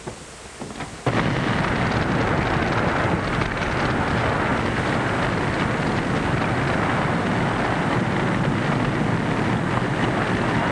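Big warehouse fire burning: a loud, steady rushing noise that starts suddenly about a second in. Near the end a siren begins to wail faintly over it.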